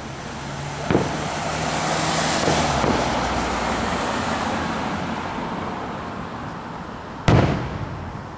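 Aerial fireworks shells bursting: a bang about a second in and a louder, sharp bang near the end. Between them a rushing hiss swells and fades.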